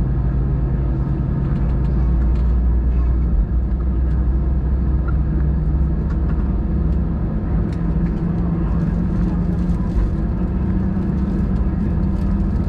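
Airbus A319 cabin rumble during pushback, heard from inside the cabin, with a low hum that slowly rises in pitch from a few seconds in.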